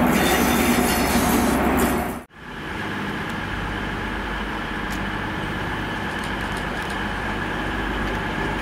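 A GWR High Speed Train's Class 43 diesel power car running past at close range, its engine loud, cut off abruptly about two seconds in. Then the steadier, quieter diesel drone of another HST power car approaching along the tracks.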